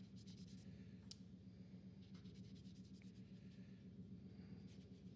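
Faint scratchy swishing of a watercolour brush stroking across paper, over a steady low hum, with one sharper click about a second in.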